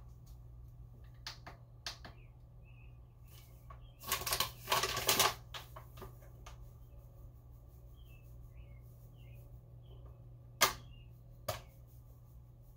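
Flour bag crinkling and rustling as it is handled and tipped to pour, loudest in a crackly stretch about four to five seconds in, with a few sharp clicks and taps scattered before and after.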